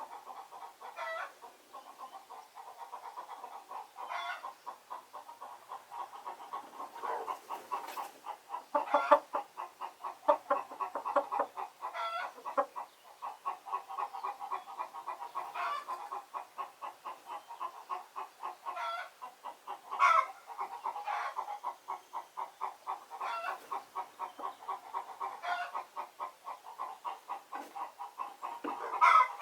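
A flock of domestic chickens clucking in a steady run of soft, quick pulses. A few louder calls stand out: one about nine seconds in, one around twenty seconds, and one near the end.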